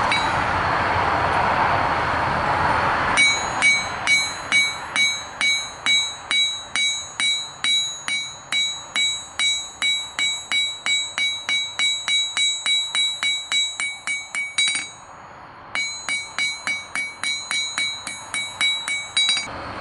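Hand hammer striking red-hot 5/16-inch steel rod on an anvil to flatten it. About three blows a second, each with a bright metallic ring, with a short pause about three quarters through before the blows resume. Before the hammering starts, the first three seconds hold a steady rushing noise.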